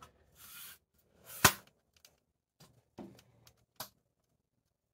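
Handling noise: a few sharp knocks and rubbing sounds as the recording phone is moved about. The loudest knock comes about one and a half seconds in, with smaller ones near three and four seconds.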